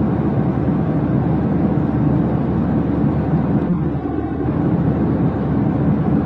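Jet airliner's steady engine drone, a low even rush of noise that holds level without changes.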